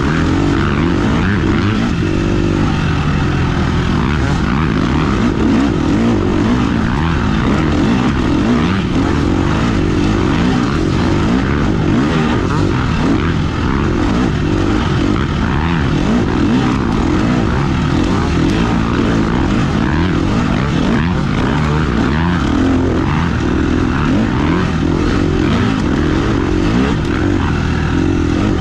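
Off-road motorcycle engine running hard on a trail ride, its pitch rising and falling continually as the throttle opens and closes.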